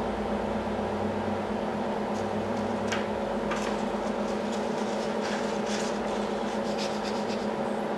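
Harbor Freight 9x20 bench lathe running with a steady hum, with a few faint scratchy sounds scattered through it.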